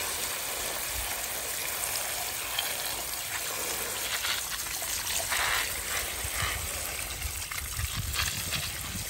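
Water from a garden hose running steadily as it fills water balloons.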